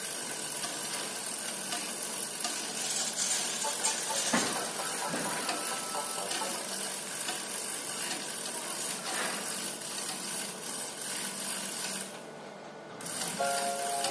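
Steady hiss with scattered metallic clicks and clatter of work on heavy machinery, with a sharper knock about four seconds in.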